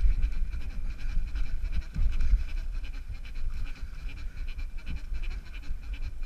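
Downhill mountain bike rolling fast down a dirt trail: wind buffeting the microphone in a low rumble, with the chain and frame rattling and clicking over bumps, loudest at the start and about two seconds in. A steady high whine runs under it and fades near the end.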